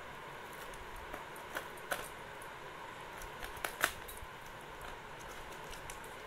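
Scissors snipping through packing tape on a small cardboard box, with the tape and cardboard being pulled apart: a few sharp clicks, two about a second and a half in and a quick cluster of three near four seconds in, over a steady hiss.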